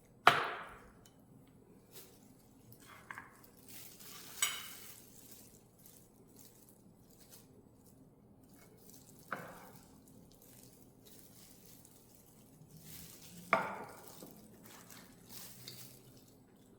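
Kitchen utensils knocking and clinking against a pot or dish: four sharp knocks several seconds apart, each with a short ring, and a few softer taps between them.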